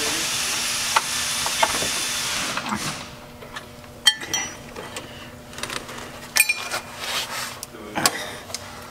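Hand-tool work on a car's brake line fitting and retaining clip: a steady hiss for the first couple of seconds, then scattered sharp metallic taps and clinks, two of them ringing, about four and six and a half seconds in.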